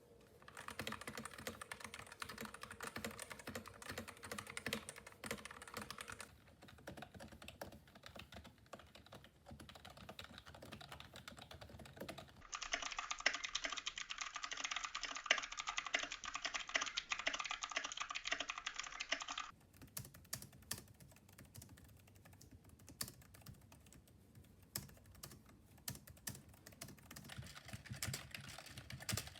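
Fast typing on several different computer keyboards in turn, from mechanical 60% boards with linear and clicky switches to membrane and Bluetooth office keyboards. A dense run of keystrokes changes in tone every several seconds as the next keyboard takes over.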